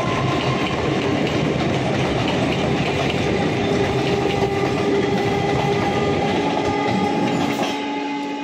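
Indian Railways EMU local train running past, its steel wheels clattering over the rail joints with a few steady whining tones over the rumble; the clatter falls away near the end as the last coach clears.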